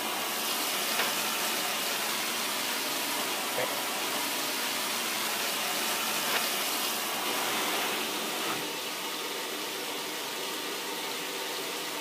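Top-loading washing machine filling its tub with water at the start of a cycle: a steady rush of incoming water.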